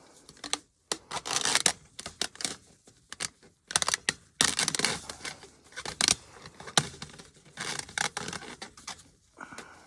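Fence wire being worked by hand, with no tools: irregular scraping, rattling and sharp clicks as the wires are pulled and twisted back into place.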